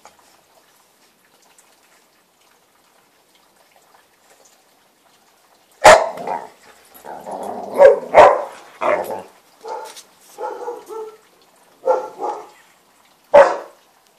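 Newfypoo dog barking: after about six seconds of quiet, a dozen or so loud barks come in irregular bursts, some in quick pairs.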